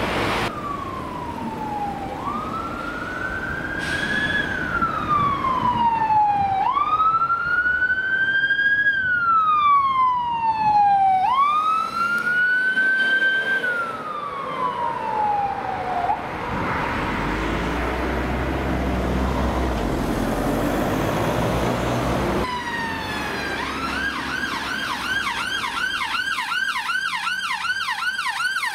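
A police car siren on a slow wail, each sweep rising for about two seconds and falling for about two and a half, for the first sixteen seconds. A vehicle engine then runs with a low rumble. About two-thirds of the way in, an ambulance siren takes over on a fast yelp of about three rising sweeps a second.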